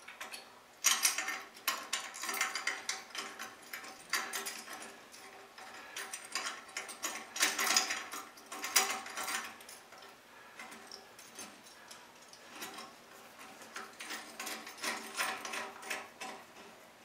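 Metal highway-peg hardware clicking, clinking and rattling as the chrome peg is threaded onto its clamp bolt and turned by hand, in irregular clusters of sharp clicks with a faint metallic ring.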